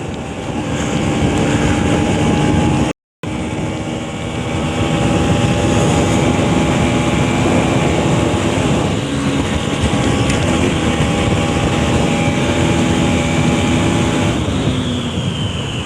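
Bajaj Pulsar NS200 motorcycle engine running at a steady road speed, heard from the rider's own bike with wind rush over the microphone. A moment after the start the sound cuts out briefly. Near the end the engine note drops and a tone falls in pitch as the bike eases off.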